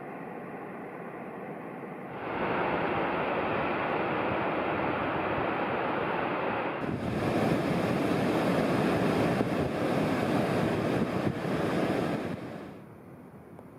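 Glacial meltwater stream rushing and splashing over rocks, a steady even noise of water. It steps up in level twice, then drops off sharply near the end.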